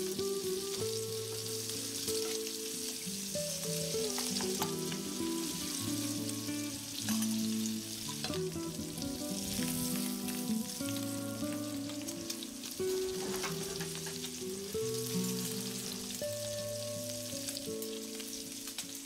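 Minced meat and sausages sizzling steadily in a steel pan on a wood-burning hobo stove, with small crackles and clicks. Instrumental background music with changing held notes plays along.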